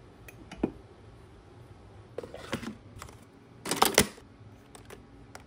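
Light clinks of a ceramic mug being lifted off a metal wall hook, then the plastic clicks and clack of a pod coffee maker's lid being lifted, the loudest clack about four seconds in.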